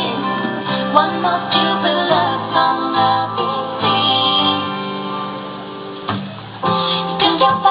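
Instrumental pop music with guitar. It thins out and drops in level about five seconds in, then comes back in full near the end.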